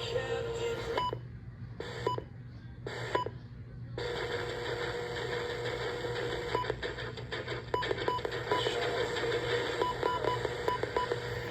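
Short, high electronic beeps at irregular intervals, some in quick pairs, over a steady tone and hiss. About four seconds in, the hiss becomes louder and continuous.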